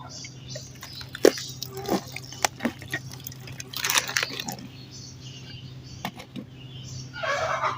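Lumps of dirt crumbling and crunching, with irregular sharp cracks and longer gritty crumbling stretches about four seconds in and near the end.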